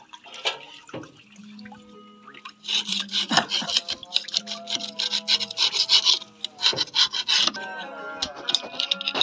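Metal rod scraping caked grease and mud off a JCB 3DX backhoe loader's front axle steering joint in quick, rasping strokes, loudest from about three seconds in until near the end. Background music plays underneath.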